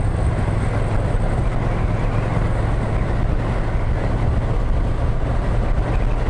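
Yamaha MT-07's parallel-twin engine running at a steady cruise, mixed with steady wind rush over the moving motorcycle.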